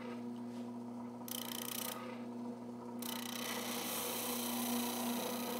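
Jet benchtop oscillating spindle sander running with a steady motor hum while a piece of pine plywood is pressed against the spinning sanding drum: a short rasp about a second in, then continuous sanding from about three seconds on.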